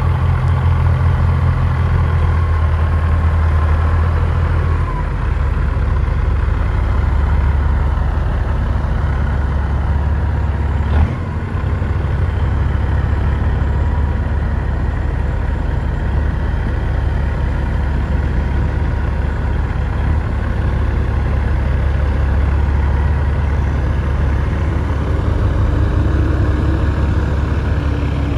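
Diesel semi truck engine running steadily at low revs. Its note drops about five seconds in, and there is one sharp knock about eleven seconds in.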